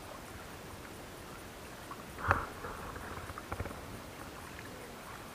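Tandem kayak being paddled: one sudden loud paddle noise about two seconds in, then a few light clicks, over faint steady water hiss.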